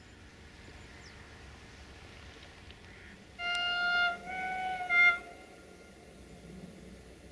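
Locomotive horn sounding about three and a half seconds in: three blasts in quick succession, the last short and loudest, over faint steady background noise.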